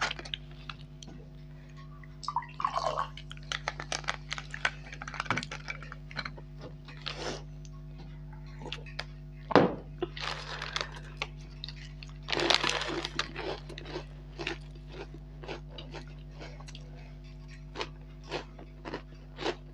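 Close-miked eating sounds: a red soft drink poured into a glass, a sharp knock on the table about halfway through, then crisp Kurkure corn puffs crunched and chewed, with many small clicks and crackles. A steady low electrical hum runs underneath.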